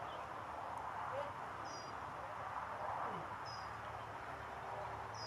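Quiet outdoor field ambience: a small bird gives a short, high double chirp three times, about every two seconds, over a steady low hum and a faint wash of background noise.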